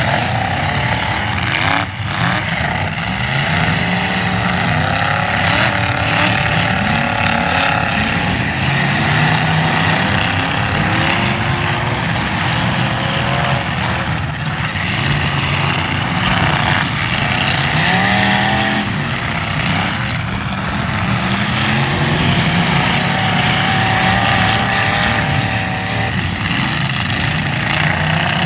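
Several demolition derby cars' engines revving hard at once, their pitches rising and falling over one another, with a few sharp bangs.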